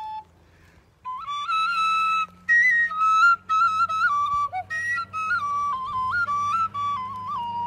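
A short wooden flute played solo. After about a second's pause for breath, it plays a melody of held notes with quick ornaments and leaps, broken by brief breaths, and the tune steps lower near the end.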